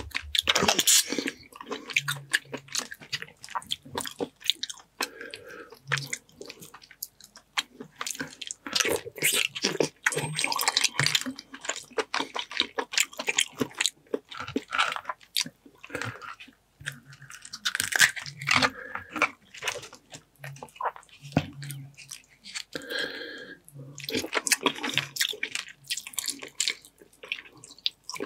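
Close-miked eating of buttered boiled seafood: blue crab shells cracked and pulled apart by hand, with wet squishing, crunching and chewing. Many clicks and crackles follow one another throughout.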